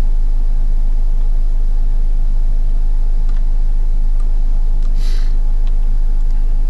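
Steady low electrical hum and rumble, the background noise of the recording microphone, with a few faint clicks and a short hiss about five seconds in.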